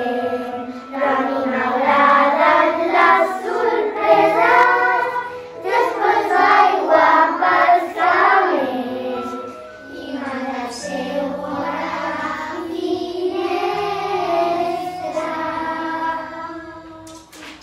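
A class of young children singing a Catalan Christmas carol together as a group. Steady low notes sound beneath the voices. Near the end the last line is held on a long note and dies away.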